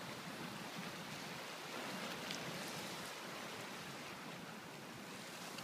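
Steady wash of surf on a beach, a low even hiss of waves, with a few faint clicks about two to three seconds in.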